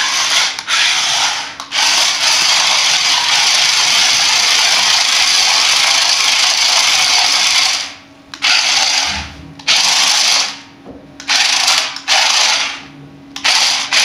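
Toy RC stunt car's small electric motors and plastic gearboxes whirring as its roller wheels drive and spin it across a concrete floor. It runs without a break for about eight seconds, then in about five short bursts as it stops and starts.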